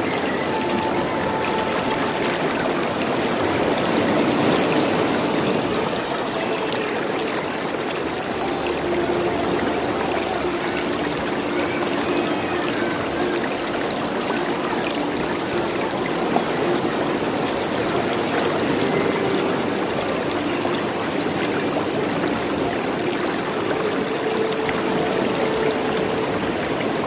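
Running water in a stream, a steady rush with small gurgling notes bubbling up through it.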